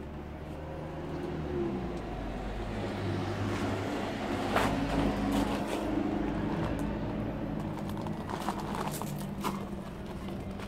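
UM DSR Hipersport 230cc single-cylinder engine idling steadily, getting louder for a few seconds in the middle. A few sharp clicks sound over it.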